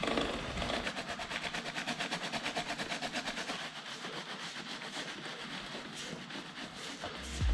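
Motorcycle drive chain clicking over its sprockets as the raised rear wheel turns on the stand during chain cleaning: an even run of light ticks, about six a second, slowly getting fainter.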